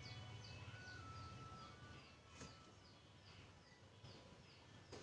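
Faint background bird chirping: a short, high chirp falling in pitch, repeated evenly about twice a second, over a low steady hum.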